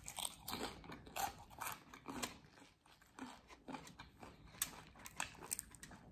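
Close-up crunching and chewing of a crispy taco shell made from a fried corn tortilla, with many short, irregular crackly crunches.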